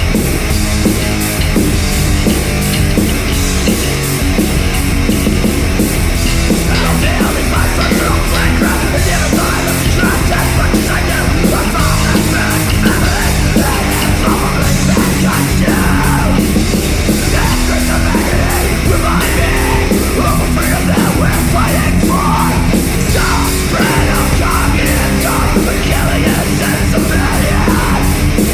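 Heavy, fast punk/metal band recording: pounding drums with distorted guitar and bass. Shouted vocals come in about six seconds in.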